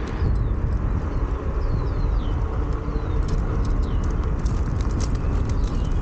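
Steady low rumble of a Onewheel Pint rolling along pavement with wind on the microphone, a faint motor whine rising out of it for a couple of seconds near the start. Small birds call repeatedly with short falling chirps, and scattered clicks come in over the second half.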